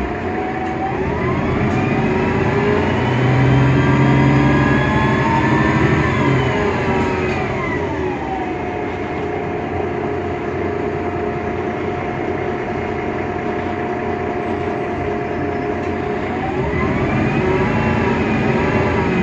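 Mercedes-Benz Citaro O530 Ü city bus with an OM 906 hLA diesel engine and a Voith DIWA 864.3E automatic gearbox, running with a distinctive whine over the engine. The whine rises in pitch for several seconds, falls away about six seconds in, holds a steady pitch, then rises again near the end.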